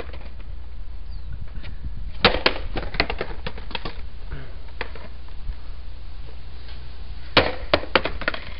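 A skateboard swung overhead and slammed down onto asphalt twice, about two seconds in and near the end, in an attempt to break the deck. Each slam is a hard crack followed by a quick clatter of smaller knocks as the board bounces.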